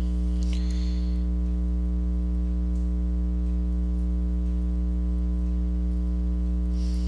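Steady electrical mains hum with a buzzy stack of overtones, with a brief soft hiss about half a second in.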